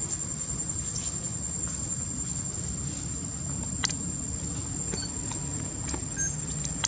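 Insects droning in one steady high-pitched tone over a steady low rumble, with a couple of short sharp clicks, one about four seconds in and one near the end.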